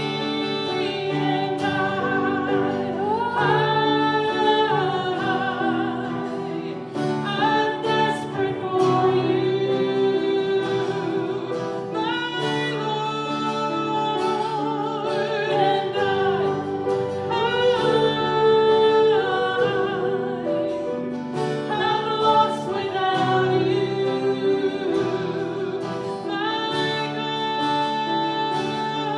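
Worship music: a sung hymn or praise song with voices over instrumental accompaniment, in long held phrases.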